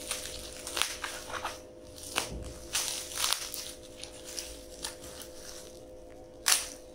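Plastic bubble wrap crinkling and crackling as a curved knife slits it open and hands pull it apart. The crackles come irregularly, with one louder crackle near the end.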